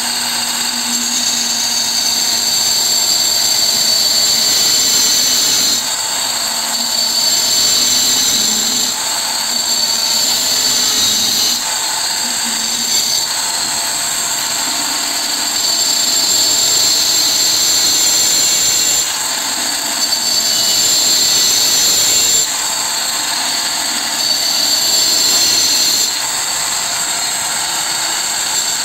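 Handheld electric tile cutter with a diamond blade running at full speed as it cuts a circular hole through a ceramic floor tile: a steady high whine that gets louder and quieter several times as the blade bites into the tile and eases off.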